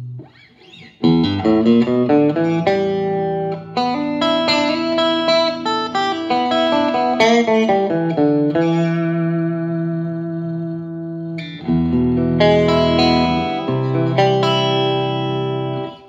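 Electric guitar played through a Vox AC10 C1 valve combo amp: after a brief pause near the start, single notes are picked in quick runs, with notes left ringing for a few seconds in the middle before the picking resumes.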